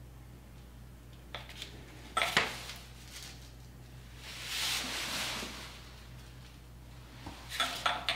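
Metal clinks and knocks from a bottle jack and steel foot pads being handled under a surface grinder, the loudest pair a couple of seconds in and another cluster near the end, with a longer rustle in the middle over a steady low hum.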